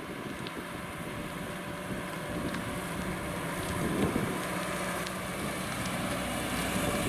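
Citroën DS20's four-cylinder petrol engine running as the car drives slowly past, with tyres on the lane and wind on the microphone. It grows louder as the car approaches and is loudest about four seconds in as it passes close.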